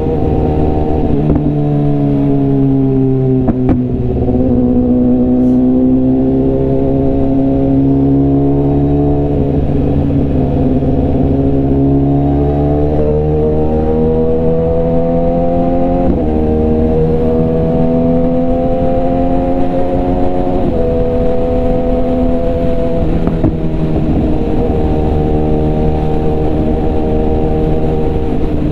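BMW S1000RR sportbike's inline-four engine and exhaust under way, its pitch rising and falling with the throttle and stepping suddenly several times at gear changes.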